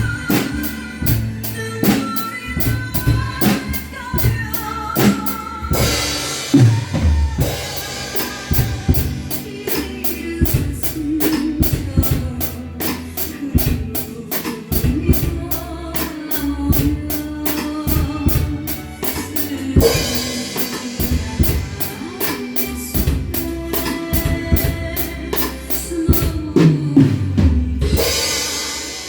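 Drum kit played along with a backing track of a Korean trot ballad, with bass drum and snare keeping a steady beat under a melody line. Tom fills lead into cymbal crashes about six seconds in, about two-thirds of the way through, and again near the end.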